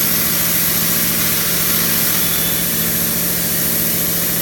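CNC plasma cutting machine running: a steady hum with a strong high-pitched hiss from the plasma torch.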